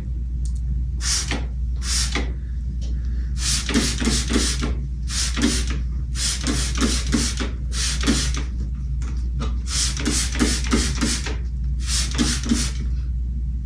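Hand spray bottle spritzing a curly wig: many short hissing sprays, some single and some in quick runs of three to five.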